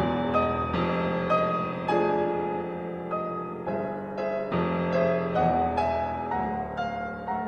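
Steinway & Sons concert grand piano played solo: a moderate-paced melody of separate notes over lower notes held for a second or so.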